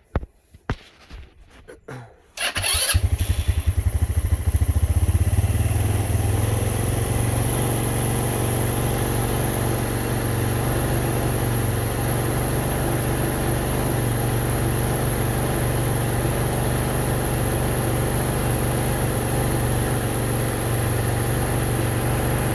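A few clicks, then a 150 cc ATV engine starts about two and a half seconds in and runs with its belt drive uncovered, a little harder for the first few seconds before settling into a steady idle. It is a test start after a stiffer clutch spring and variator tuning.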